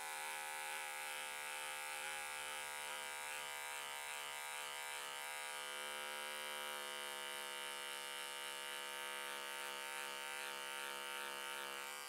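Rechargeable Remington beard trimmer running with a steady buzz as it shaves a sideburn down to a line.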